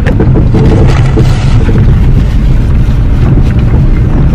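Loud, steady low rumble inside a moving car as it makes a slow turn: road and engine noise mixed with wind buffeting the microphone.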